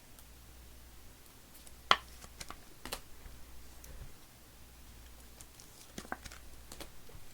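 Scattered sharp clicks and taps of cards and plastic card cases being handled on a table: one loud click about two seconds in, a few lighter ones just after, and another small cluster near the end.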